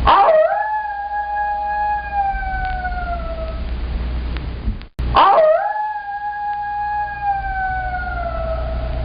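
Coyote howling: two long howls, each sweeping up quickly, holding one pitch, then sliding down slowly at the end, with a steady low rumble underneath. A third howl begins right at the end.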